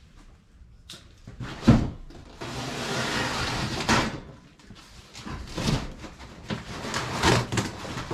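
Unboxing handling noise from the mini bike's shipping box: scattered knocks and clunks, a sharp thump about two seconds in, and a longer rasping scrape lasting over a second just after it.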